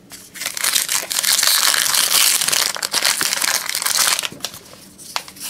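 Foil-lined wrapper of a 2019 Topps Heritage baseball card pack crinkling and tearing as it is pulled open by hand, a dense crackle lasting about four seconds, then a few faint ticks.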